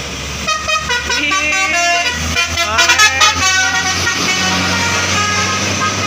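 Bus telolet horn, a basuri-type multi-tone musical horn, playing a fast run of stepping notes. It is loudest near the middle and stops about four seconds in, over the low steady running of the bus's engine.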